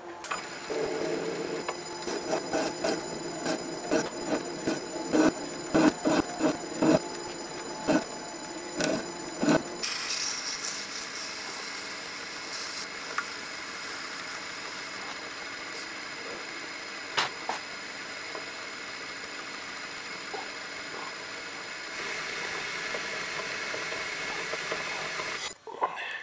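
Metalworking lathe running while a tool forms a small round on a high-tensile steel valve blank: irregular sharp clicks over the running hum for about the first ten seconds, then a steady hum and whine that stops abruptly shortly before the end.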